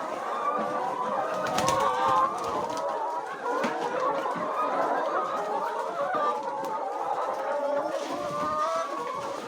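A flock of laying hens clucking and calling continuously, many birds' calls overlapping, with a few sharp clicks about a second and a half in.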